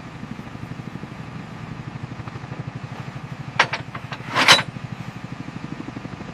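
A machine running with a fast, steady throbbing pulse. Two short hissy bursts come a little past the middle.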